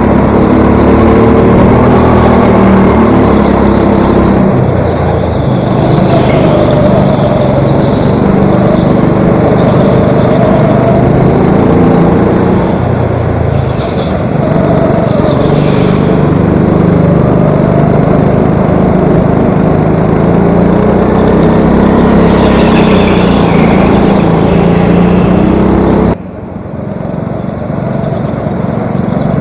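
Go-kart engine running hard, close up, its pitch rising and falling as the kart speeds up and slows through the corners. Near the end the sound drops suddenly and then builds back up.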